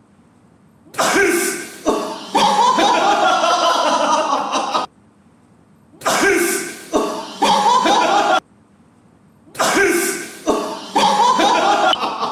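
A man's loud sneeze running on into voiced sound, heard three times in a row as repeated replays, each starting and stopping abruptly.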